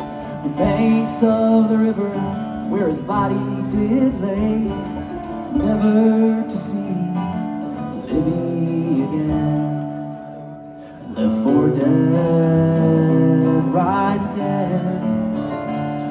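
Bluegrass string band playing live: plucked acoustic guitar and other picked strings over upright bass. The playing thins out about ten seconds in, then comes back in fuller about a second later.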